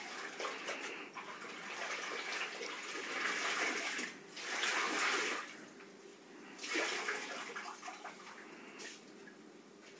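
Fabric rustling as a child's gown of net cloth with a cloth lining is handled and turned over. It comes in several swells, the loudest about four to five and a half seconds in, then fades toward the end.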